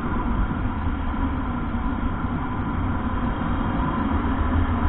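Honda RS150R motorcycle running steadily: an even, continuous low engine and road rumble with no change in speed.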